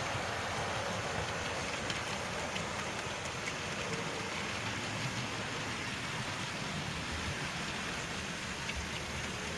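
00 gauge model trains running on the layout's track: a steady rumble of wheels and small motors with faint scattered clicks.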